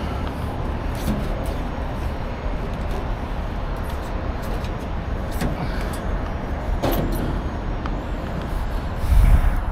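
Steady low rumble of vehicle engines and traffic, with scattered clicks and rustles as a gloved hand handles a synthetic rope sling against the truck body. A louder low thump about nine seconds in.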